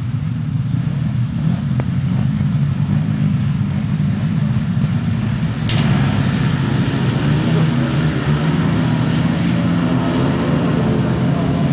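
Several 500cc grasstrack sidecar engines revving together at the start. About six seconds in they open up at once and the outfits race off, a louder drone of many engines.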